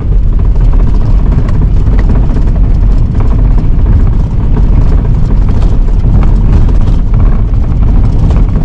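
Vehicle on the move on a snow-covered road: a loud, steady low rumble.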